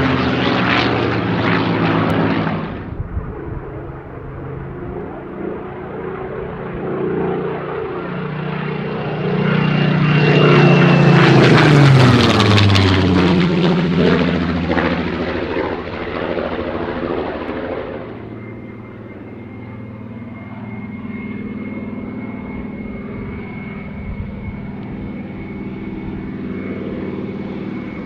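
Supermarine Spitfire Mk.XVIIIe's Rolls-Royce Griffon V12 engine and propeller on low passes: the engine note swells to its loudest about twelve seconds in, its pitch falling as the aircraft goes by. The sound drops suddenly about three and eighteen seconds in, and after that it is a quieter, steady engine drone with a thin, steady high whine over it.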